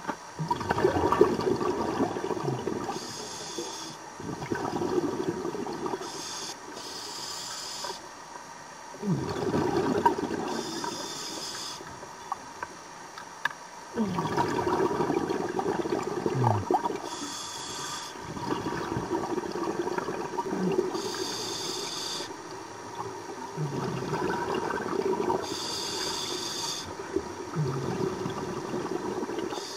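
Scuba diver breathing through a regulator underwater: a short hiss on each inhale alternates with a longer rush of bubbles on each exhale, about six breaths in all.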